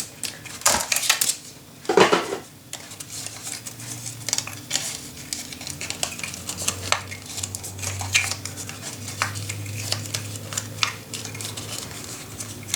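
Scissors cutting paper, with many short clicks and light knocks of tools on a craft table, the loudest knock about two seconds in. A faint low hum runs under most of it.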